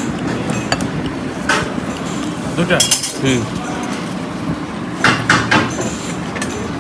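Dishes and cutlery clinking in a few sharp strokes, in clusters about a second and a half apart, over background chatter.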